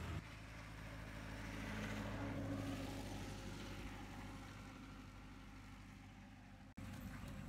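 A motor vehicle passing on the road: a low engine hum that swells to its loudest about two seconds in, then slowly fades away.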